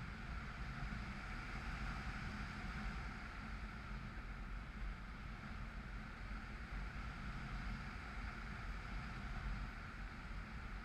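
Steady, even rushing noise with a low rumble underneath: airflow and electric-motor noise picked up by the onboard camera of a Bixler RC foam plane in flight.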